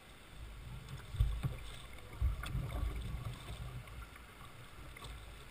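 Water slapping and gurgling against the hull of a Jackson Coosa kayak as it is paddled, loudest from about one to three seconds in, with a few light knocks and splashes.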